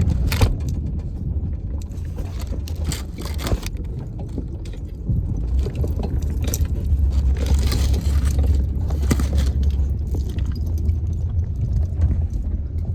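Steady low rumble of a moving vehicle heard from inside the cabin, with loose things rattling and jangling on and off.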